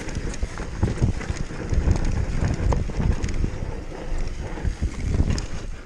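Wind buffeting the microphone over the clatter of a downhill mountain bike riding rough ground, with irregular knocks and rattles.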